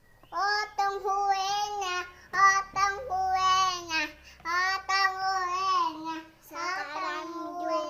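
A young child singing a tune in short phrases, holding steady high notes between brief breaths.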